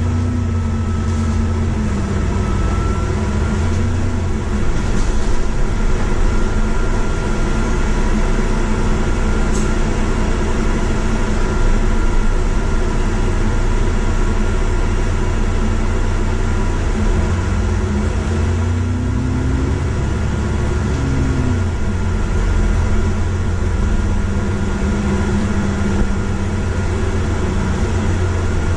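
Bus engine and drivetrain droning steadily, heard from inside the upper deck of the moving bus. The engine note rises and falls twice as the bus speeds up and slows.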